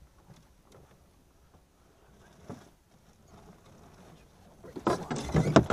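Handling of a channel catfish held in lip-grip pliers on a boat deck: faint clicks and small knocks at first, then about a second of loud knocking and rustling near the end.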